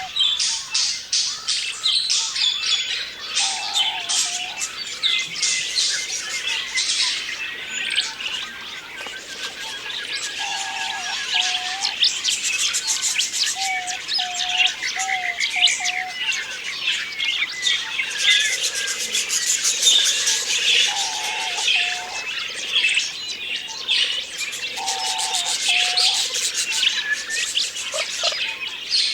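A flock of budgerigars chattering and warbling continuously, with many overlapping high chirps. Short, lower held notes recur now and then beneath the chatter.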